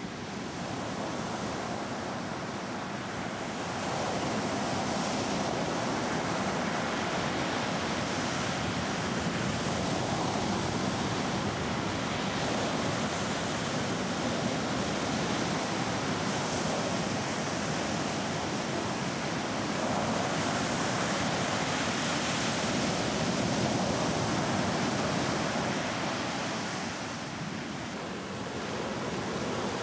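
Ocean waves breaking on a beach: a steady wash of surf that swells and ebbs, easing briefly near the end.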